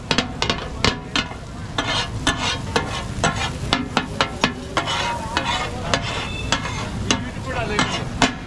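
Katakat being cooked: steel spatulas clatter and chop rapidly and irregularly on a flat iron griddle over steady sizzling, with metal ringing briefly now and then.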